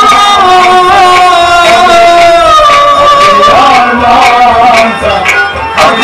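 Kashmiri Sufi music: men singing a long, gliding melody with harmonium, plucked rabab and hand-drum accompaniment. The music dips briefly about five seconds in.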